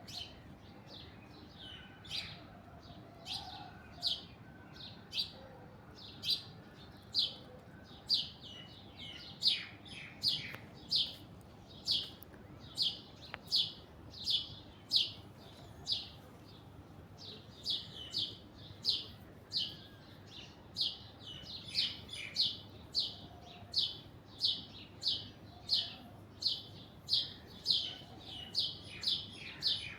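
Alexandrine parakeet calling: short, sharp chirps repeated over and over. They come only now and then at first, then settle into a steady run of about two a second.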